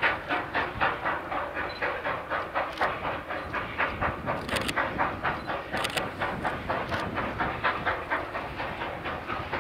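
South African Railways steam locomotive working under steam, its exhaust chuffing in a steady rhythm of about four beats a second, with hiss and a few sharper clicks in the middle.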